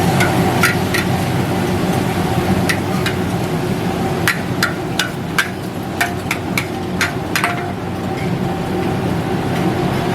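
Metal spatula striking and scraping a wok: a string of sharp, ringing clanks, busiest between about four and seven and a half seconds in, over steady background noise.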